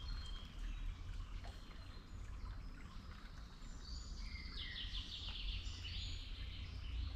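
Songbirds singing over a low, steady background rumble, with a short call near the start and a quick, rapid run of high notes about four to six seconds in.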